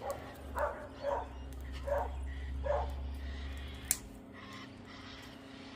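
A dog barking four times, the barks spaced under a second apart, followed by a single sharp snap about four seconds in.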